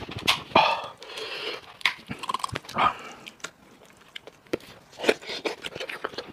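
Close-miked eating: wet chewing, sucking and lip-smacking noises broken by many sharp clicks at irregular moments.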